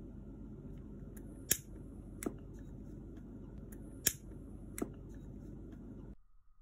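Gas lighter worked twice. Each time there is a sharp click, a short high hiss of gas while it is held, and a second click as it is let go. A steady low background hum cuts off abruptly near the end.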